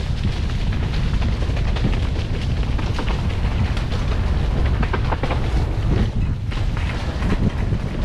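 Mountain bike ridden fast down a dirt forest trail: a steady low rumble of wind on the camera microphone, with frequent rattles and knocks from the bike over the rough ground.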